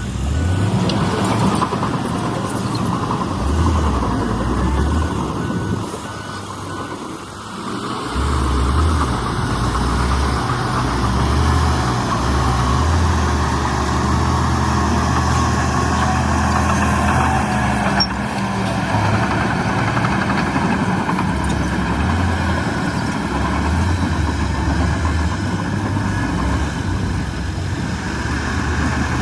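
Heavy diesel engine of earthmoving machinery running and working, its note swelling and easing with the load, with a short lull about seven seconds in.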